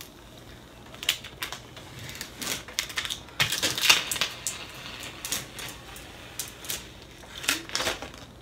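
Clear vinyl transfer tape crackling as it is peeled off a stencil and rolled up by hand: irregular crinkles and ticks, thickest about three and a half to four seconds in.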